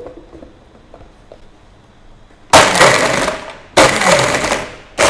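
JTC blender switched on in short pulses, crushing ice in a frappe mix. There is a light click of the lid being pressed on at the start. About two and a half seconds in, the blender runs in two bursts of about a second each with a brief stop between them, and a third burst begins just at the end.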